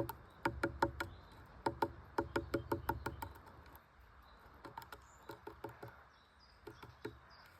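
Quick runs of sharp taps, about five a second, loud through the first three seconds, then fainter and more scattered.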